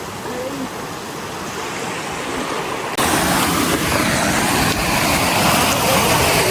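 Rushing water of a small waterfall, a steady hiss that jumps abruptly louder about three seconds in.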